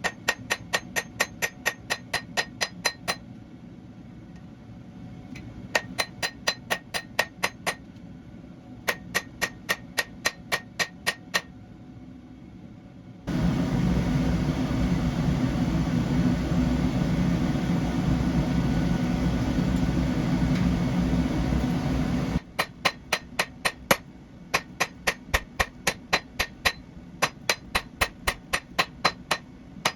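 Hand hammer striking a hot Damascus steel billet on an anvil in quick runs of about four to five ringing blows a second, with short pauses between runs. About halfway through, the hammering stops for roughly nine seconds of a loud steady rushing noise, then the hammering starts again.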